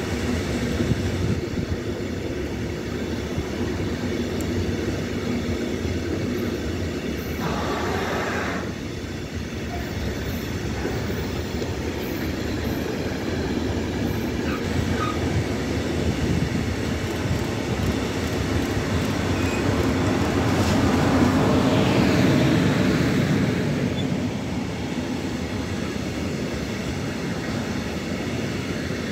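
Freight trains rolling past close by: the wheels of a long container train's flat wagons rumble and clatter steadily over the rails. A DB class 143 electric locomotive and its car-carrier wagons then pass on the track in front, and the sound swells to its loudest about three-quarters of the way through.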